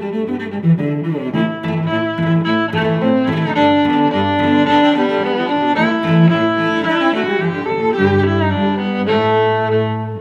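Outro music: bowed strings, cello and violin, playing a melody over held low notes.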